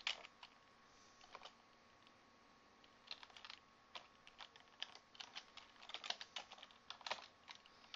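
Faint typing on a computer keyboard: a few scattered keystrokes, a pause of about a second and a half, then a quicker run of keystrokes from about three seconds in.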